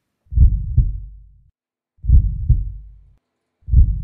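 Heartbeat sound effect: slow, deep lub-dub double thumps, one pair about every 1.7 seconds, three beats in all.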